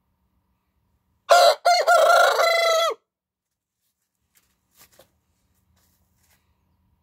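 White rooster crowing once, a little over a second in: a short first note, then a long held note that drops off at the end.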